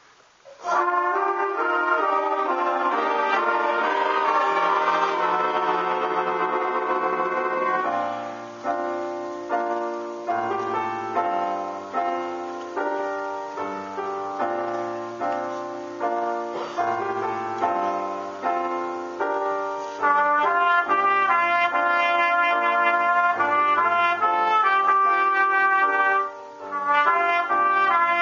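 School jazz band starting a ballad: a sustained full-band chord about a second in, then a solo piano passage of struck, fading notes over a bass line, and from about two-thirds of the way through a solo trumpet carrying a held melody.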